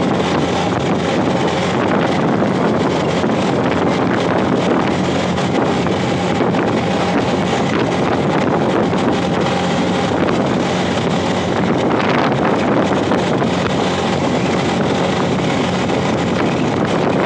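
Steady wind rushing over the microphone of a motorcycle at speed, with the engine's hum and road noise beneath it.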